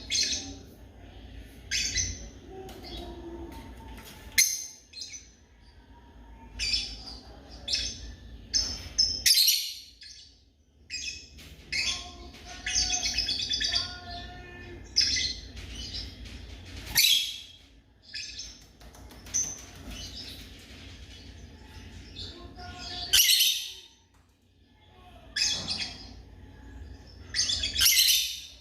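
Lovebirds chirping: a busy run of high chirps and twitters, with loud shrill calls breaking out about every five seconds, over a steady low rumble.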